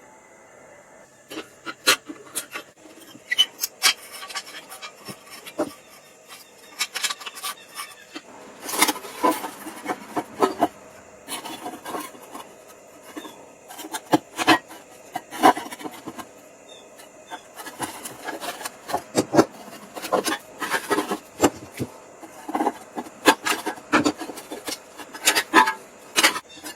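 A hand tool rasping and scraping over a surface in short, irregular strokes, starting about a second in and coming faster and thicker from about a third of the way through.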